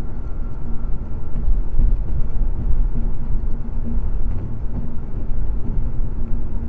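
Steady low road and engine rumble of a car driving at highway speed, heard inside the cabin through a dashcam microphone.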